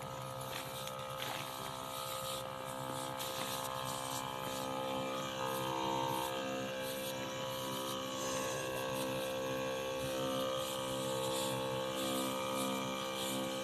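Knapsack sprayer's small electric pump motor running with a steady buzz while it sprays insecticide onto seedlings.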